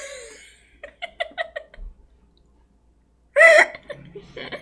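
A person giggling: a quick run of short laughs, then after a pause a louder burst of voice near the end.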